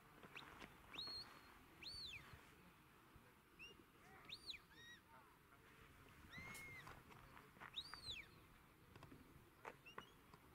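Shepherd's whistle commands to a working sheepdog: a series of short, faint whistles, each rising and falling in pitch, spaced about a second apart, with one longer, lower whistle about six and a half seconds in.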